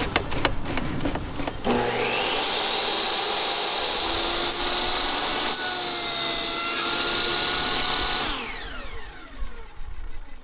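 Jobsite table saw switched on about two seconds in, its motor rising to a steady high whine as the blade cuts through a wooden board. Near the end it is switched off and the blade spins down with a falling whine. A few clicks of handling come before it starts.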